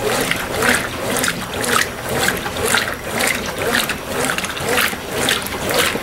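Brastemp Ative! BWP11 top-loading washing machine agitating a load of clothes in soapy water on turbo agitation: rhythmic sloshing and swishing that surges about twice a second with the agitator's strokes.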